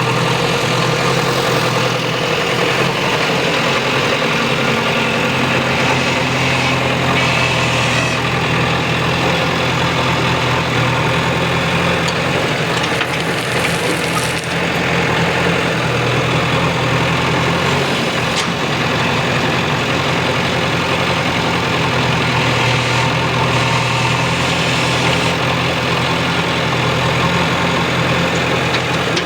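Diesel engine of an earthmoving machine running steadily, a continuous engine note with mechanical noise over it and no breaks.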